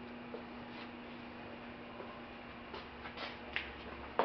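Quiet shop room tone: a steady low hum with a few faint ticks and knocks past the middle.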